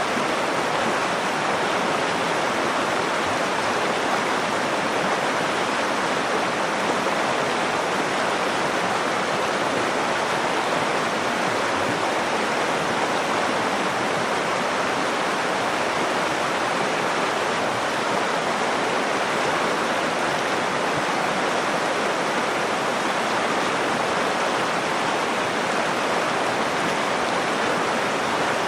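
Nakdong River water flowing over rocks in a steady, unbroken rush.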